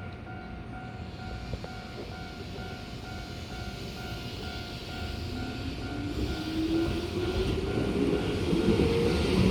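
Japanese level-crossing warning bell dinging steadily and rapidly. From about halfway a Keihan electric train draws near, its rising motor whine and wheel rumble growing louder toward the end.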